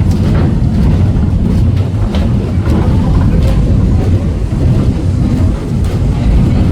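A moving passenger train heard from on board: a steady low rumble with light clicks here and there.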